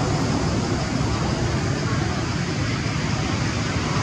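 Steady rushing background noise at an even level, with no distinct knocks or calls standing out.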